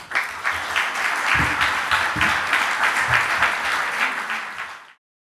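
Audience applauding, many hands clapping, cut off abruptly near the end.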